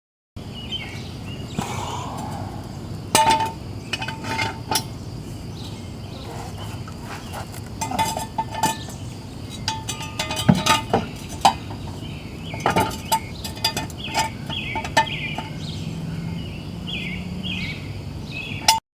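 Irregular metal clinks and clanks, each with a short ring, from a car jack and jack stand being worked under a car as it is raised.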